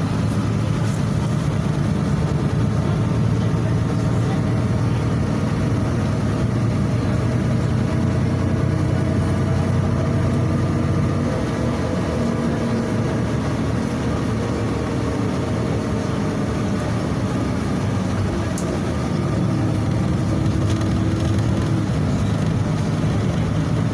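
Cabin noise of a Volgabus-5270.G2 city bus running on liquefied natural gas while driving: a steady engine and road rumble with a faint whine that drifts in pitch, easing off a little around halfway and picking back up near the end.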